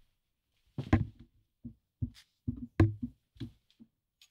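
A string of about ten soft, irregular knocks and thumps, some with a sharper click, as a person handles a sleeved vinyl record and moves away across the room.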